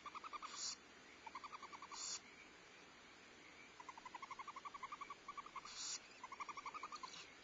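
Barn owls in the nest box making rapid chittering twitter calls in several runs, with three short hisses among them, as the owlets are fed.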